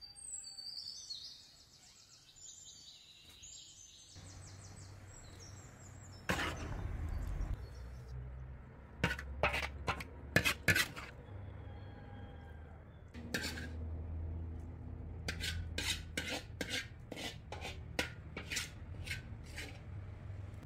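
Metal ladle clinking and scraping against a large steel wok, a long series of sharp, uneven clinks, while stuffing is scooped out of it into a lamb carcass. A small bird sings a high trilling phrase at the start.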